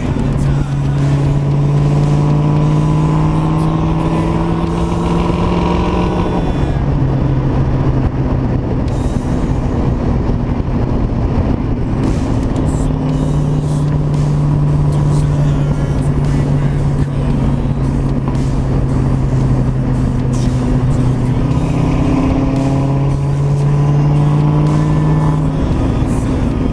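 Freshly rebuilt 311 cubic-inch Ford small-block V8 in a 1990 Mustang, with a Comp XE274HR cam and off-road H-pipe exhaust, running during break-in drive. Its pitch climbs as the car accelerates over the first few seconds, holds steady while cruising, then climbs again near the end, over wind and road noise.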